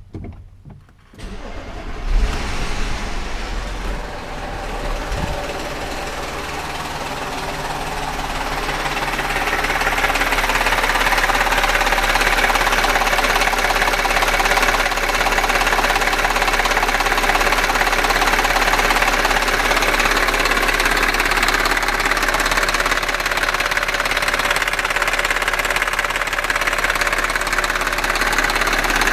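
Audi A6 4F 3.2 FSI V6 engine cranking and catching about two seconds in, then running with a clattering, ticking knock that the owner calls strange clacking and nailing. The sound grows louder until about ten seconds in and then holds steady.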